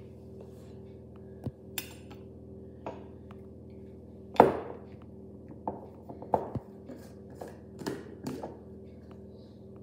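Metal spoons clinking and knocking against a bowl while cake batter is scooped out and dropped into cupcake cases, in scattered irregular taps with one louder knock about four and a half seconds in.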